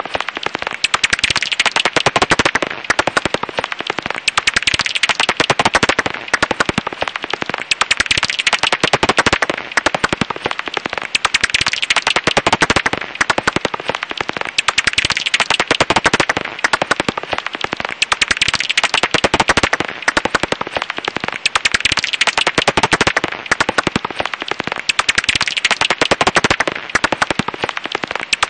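Japanese house bat (Japanese pipistrelle) echolocation calls, brought down into hearing range, heard as a dense, rapid stream of clicks that swells and fades in waves every second or two.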